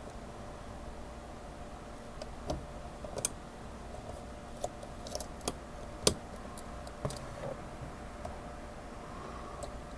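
Lock pick and tension wrench working the pins of a small Kryptonite padlock: scattered light metallic clicks and taps at irregular intervals, the loudest about six seconds in.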